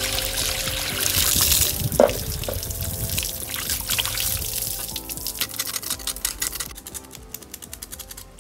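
Water pouring into a steel basin of raw cow leg pieces, then sloshing and splashing as hands rub and scrub the meat in the water. There is a brief louder thud about two seconds in. Soft background music plays underneath.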